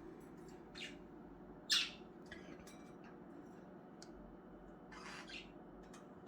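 Budgerigars giving a few short chirps and squawks, the loudest about two seconds in, over a faint steady hum.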